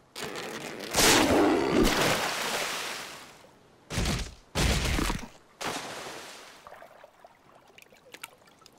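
Cartoon slapstick sound effects: a crashing noise about a second in that dies away over a couple of seconds, then three sharp bangs in the middle, fading to faint clicks.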